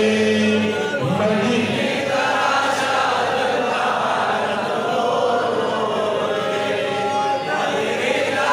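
A man chanting a Pashto naat into a microphone, a melodic devotional recitation in long held notes.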